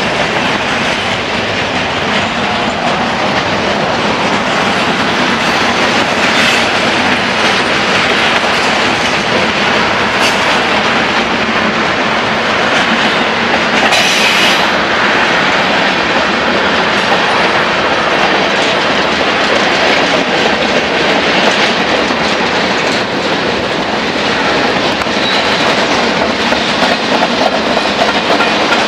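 Freight cars of a long mixed freight train rolling past at close range: a steady, loud rumble and clatter of steel wheels over the rails, with one brief sharper high burst about halfway through.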